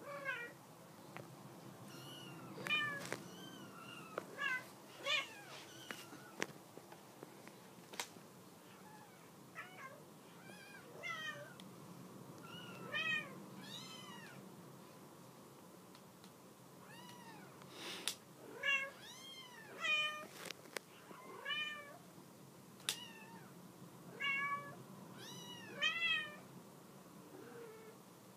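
Young kittens mewing: many short, high-pitched mews, one after another, with a few sharp clicks between them.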